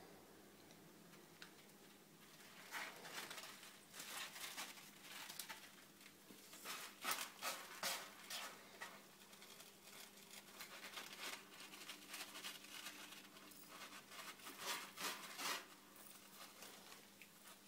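Kittens playing: quiet, irregular bursts of scratching and rustling from their paws and claws.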